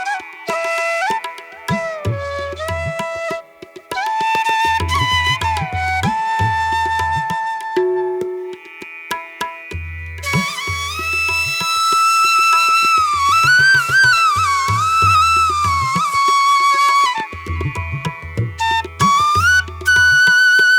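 Instrumental music: a melody on a flute-like wind instrument with sliding, bending notes, over phrases of low drum strokes.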